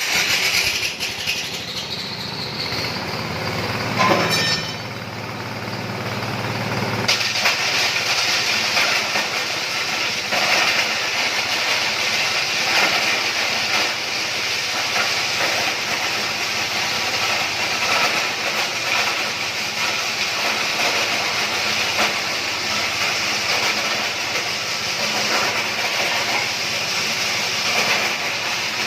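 Multifunction grass chopper and pellet press machine running, a steady mechanical rushing noise with hiss. A deeper, louder stretch comes about four seconds in and changes about three seconds later to an even rush with scattered clicks.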